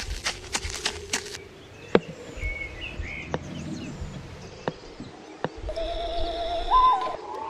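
Footsteps crunching through dry leaf litter for about the first second, then outdoor ambience with birds chirping and a few single sharp snaps. Near the end a loud warbling tone rises in pitch.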